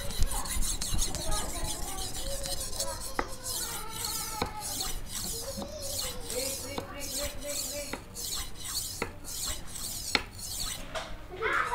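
Vanadis 8 steel golok blade stroked back and forth on a fine yellow Bogor natural whetstone of about 4000 grit: a steady run of repeated gritty scraping strokes of steel on stone.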